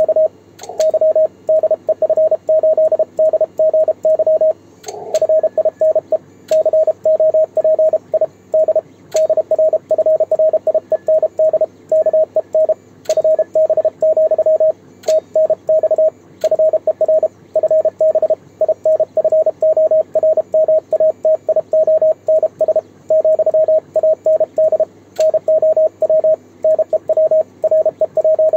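Morse code keyed by hand on a homemade 3D-printed single-lever paddle and heard as the transceiver's CW sidetone: one steady mid-pitched beep switched rapidly on and off in dots and dashes. A brief burst of receiver hiss comes about five seconds in. Faint sharp clicks recur every second or two.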